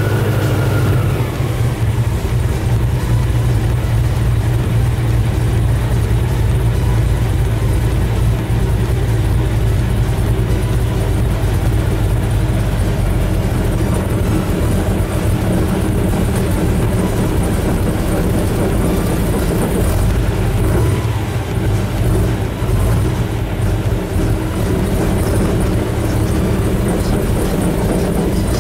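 Airboat engine and propeller running at speed: a loud, steady drone with a rush of noise over it.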